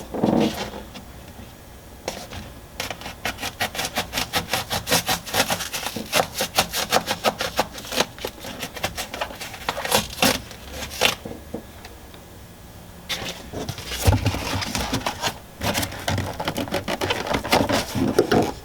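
Knife sawing through seat foam in quick, even strokes, about four or five a second, with a few heavier knocks later on as the foam is handled.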